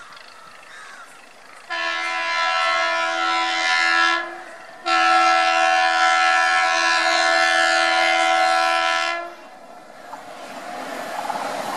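Electric suburban train's horn sounding twice with a steady tone, first a blast of about two and a half seconds, then after a short break a longer one of about four seconds. Near the end a rising rumble of the train getting under way builds up.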